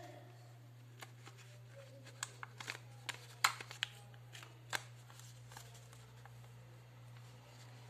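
Hands fitting a roll of thermal paper into a PT-210 portable thermal printer: paper rustling with light plastic clicks and taps, the sharper ones in the first five seconds, over a steady low hum.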